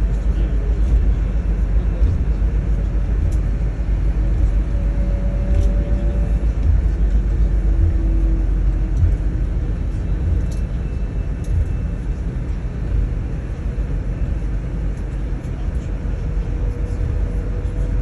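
Airport apron shuttle bus driving, its engine and road noise heard as a steady low rumble from inside the cabin.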